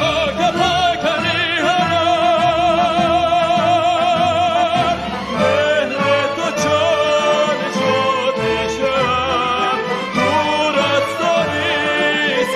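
Background music: a sung vocal line with a strong, wide vibrato over a steady beat, the held notes wavering and the singer changing phrase about five seconds in.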